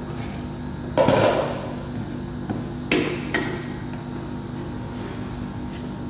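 Metal spatula striking and scraping on a steel cold plate: a loud clack about a second in, then two more close together near three seconds.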